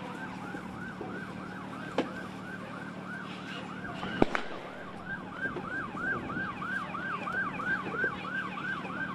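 An emergency vehicle siren in a fast yelp, rising and falling about three times a second. Sharp cracks from the burning helicopter wreckage come through it, one about two seconds in, the loudest just after four seconds, and a fainter one near the end.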